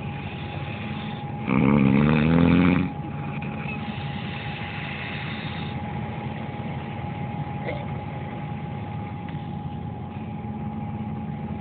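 A man snoring loudly once, a single long rasping snore about a second and a half in, over a boat engine running steadily with a constant hum.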